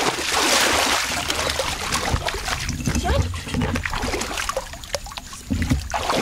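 Shallow water splashing and trickling as a conical bamboo plunge basket is pressed down into it, loudest in the first second or so, then scattered small splashes and knocks.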